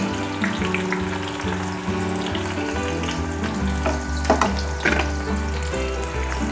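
Sliced onions sizzling as they fry in medium-hot oil in an aluminium kadai, being fried brown and crisp. Soft background music with changing notes plays underneath.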